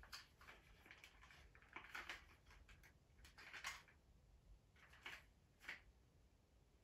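Near silence broken by a handful of faint clicks and rustles of a plastic Playmobil train remote control being picked up and handled.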